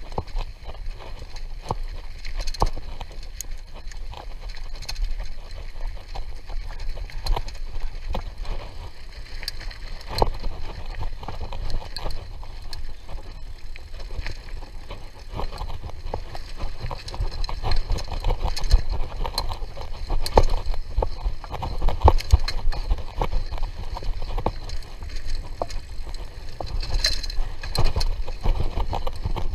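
A mountain bike ridden over a rough dirt trail, its frame and parts rattling and knocking irregularly over bumps, with a steady low rumble underneath.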